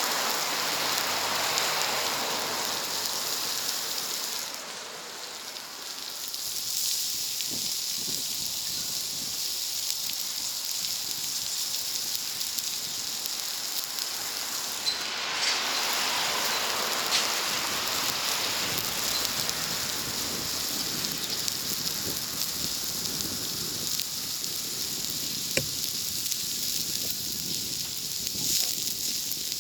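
Food sizzling on a wood-fired barbecue and plancha: a steady hiss with a few sharp pops from the fire.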